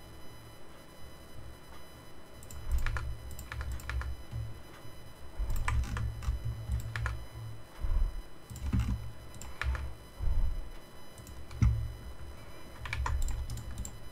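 Computer keyboard and mouse clicks in short, irregular spurts of a few taps at a time, with dull low bumps underneath.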